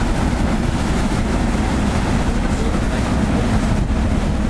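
Sakurajima car ferry's engines running with a steady low drone over the rush of water churned up by the propellers.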